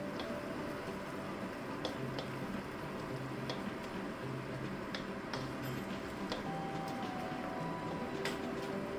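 Tomato sauce simmering in a steel wok with a steady hiss, while a wooden spatula stirs it and clicks against the pan now and then.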